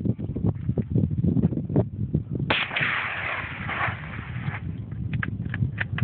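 A single .22 calibre rifle shot about two and a half seconds in: a sharp crack with a trailing smear of sound, over a low, uneven rumble.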